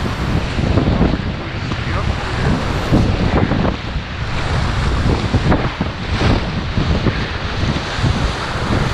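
Big, fast whitewater of the Snake River rushing and splashing around an inflatable kayak, with wind buffeting the microphone as a steady low rumble.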